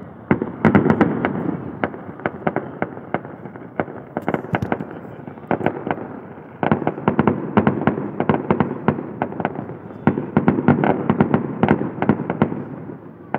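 Aerial fireworks bursting in rapid volleys of sharp pops and bangs. They come in three busy waves: from just after the start, again from about six and a half seconds in, and around ten seconds, with sparser pops between.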